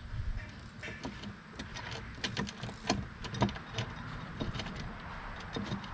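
Irregular light clicks and taps of a bolt being worked into a T-nut in a roof rack's load bar, metal parts knocking against each other as it is fitted.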